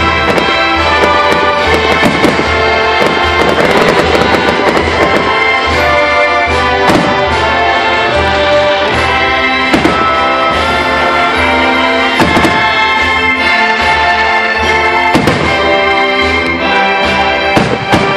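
Loud orchestral music with brass playing throughout, with the bangs of aerial firework shells bursting through it several times, a few seconds apart.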